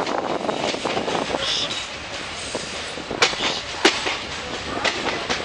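Passenger train running along the track, heard from an open coach door: steady rumble and rattle of wheels on rails, with two sharp metallic clacks about three and four seconds in as the wheels cross rail joints or points, and a brief high squeal about one and a half seconds in.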